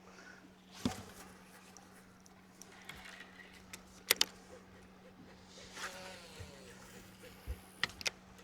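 Fishing gear being worked on a boat during topwater casting: scattered sharp clicks, the loudest a quick double click about four seconds in, and a short whirr that glides down in pitch around six seconds, like a baitcasting reel's spool spinning on a cast. A steady low hum runs underneath.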